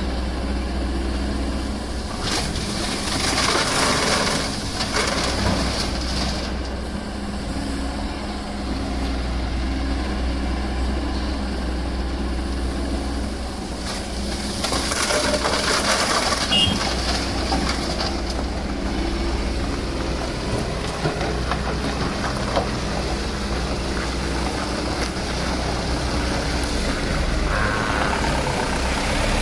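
Sany SY215C excavator's diesel engine running steadily under work. There are two louder spells of rushing noise, about three seconds in and again about fifteen seconds in.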